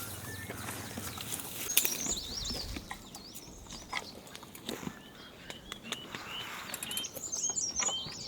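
Small birds chirping and twittering in quick short notes, thickest near the start and again near the end. Scattered sharp clicks and knocks cut across them, the loudest about two seconds in.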